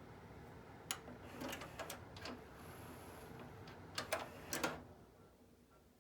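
Onkyo DX-C200 five-disc CD changer's mechanism clicking and clunking: single clicks about a second in, a few more over the next second, and a quick cluster of clicks near four seconds, over a steady hum that fades out near the end.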